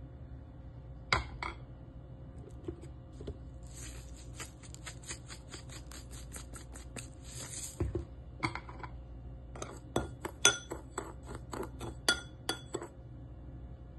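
A metal spoon clinks on a small ceramic bowl about a second in. Ground seasoning is then shaken from a jar into the bowl, a rapid rattling hiss lasting about four seconds. In the second half the spoon clinks against the bowl again and again as the seasonings are stirred together.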